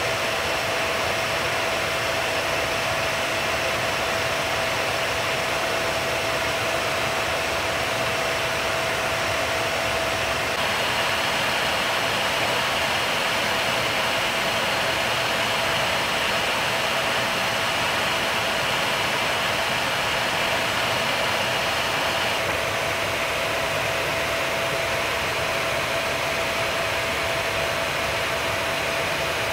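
Steady cockpit noise of a B-52 bomber in flight: a constant rush of engine and airflow noise with a steady mid-pitched hum over it.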